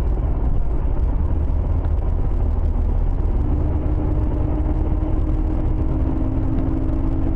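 Steady low rumble of road and engine noise heard from inside a car travelling at about 125 km/h. About halfway through, a steady two-note hum joins in.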